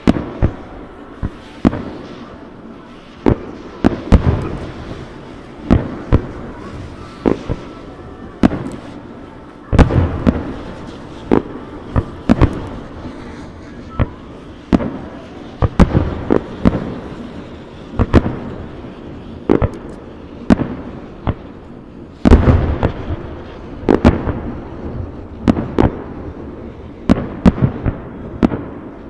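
Aerial fireworks shells bursting in a rapid, irregular barrage: dozens of sharp bangs, some in quick clusters, each trailing off in a rolling echo, with crackling between them.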